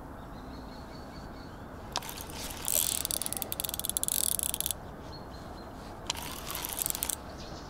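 Spinning reel's drag ratcheting in rapid high-pitched clicks as a hooked fish takes line: one run of about two seconds and a shorter one near the end. The angler takes the fish for a catfish.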